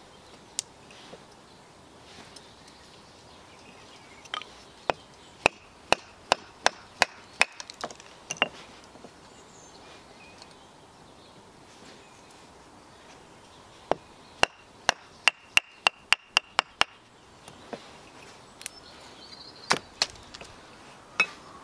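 A bushcraft knife batoned through small pieces of wood on a log chopping block, splitting kindling: sharp wooden knocks in two runs of about nine strikes each, the second run faster, then a few scattered knocks near the end.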